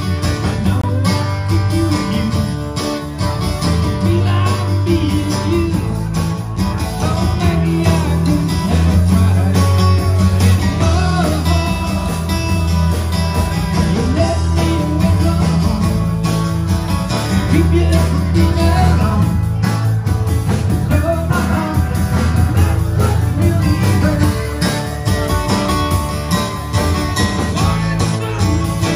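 A live rock band playing electric bass, drums and electric guitar, with vocals, in a steady blues-rock groove driven by prominent bass notes.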